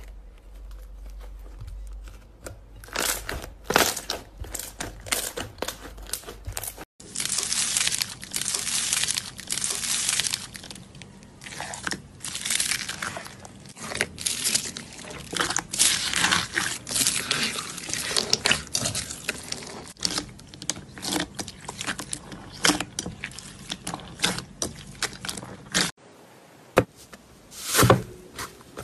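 Hands squishing and pressing slime, much of it mixed with small foam beads, making crunching, crackling and sticky popping sounds in quick irregular crackles. The sound changes abruptly about seven seconds in and again near the end, as one slime gives way to another.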